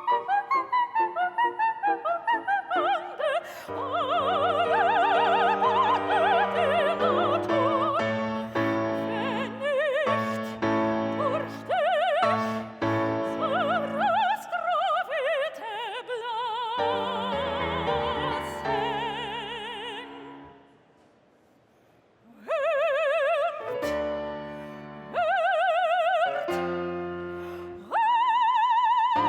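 Operatic singing in a high voice with wide vibrato, over classical instrumental accompaniment that opens with quick repeated notes. The music drops out briefly about two-thirds of the way through, then the singing comes back in.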